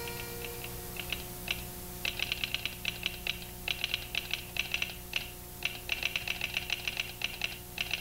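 Telegraph sounder clicking out Morse code: quick runs of sharp clicks in groups, with short pauses between them.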